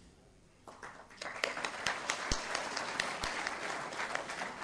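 Audience applauding; the clapping starts about a second in after a brief quiet and keeps going.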